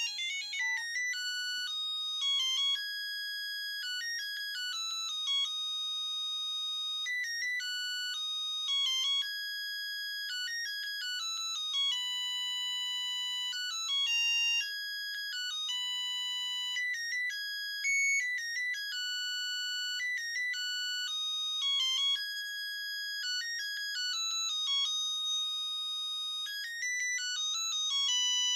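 Samsung SGH-A300 mobile phone playing a ringtone: a high-pitched electronic melody of quick runs of short notes alternating with longer held notes.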